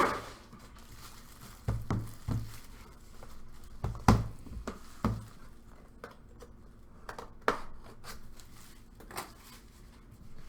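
Knocks, scrapes and crinkling of a sealed trading-card box being cut and slid out of its cardboard outer box. Irregular taps and bumps, the loudest about four seconds in.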